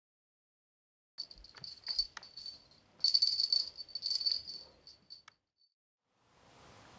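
Small bell in a plush ball cat toy jingling and rattling in irregular shakes as a kitten paws and bats at it, stopping a little after five seconds in. A faint steady room hiss follows near the end.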